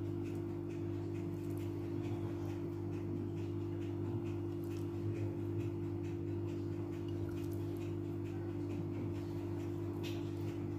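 Steady low electrical-sounding hum that does not change, with faint scattered soft ticks on top.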